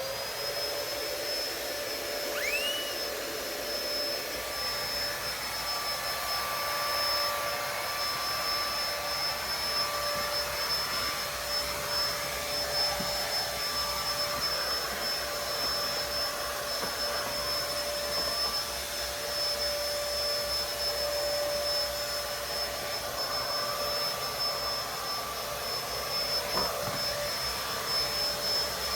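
Household vacuum cleaner spinning up at the start, then running steadily with a constant high whine over its motor noise.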